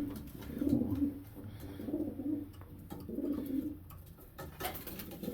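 Domestic pigeons cooing in their loft: a run of low, warbling coos, one following another every second or so.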